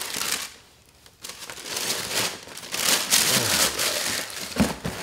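Paper rustling and crinkling as a sneaker is handled in and out of a cardboard shoebox, with a dull thump near the end.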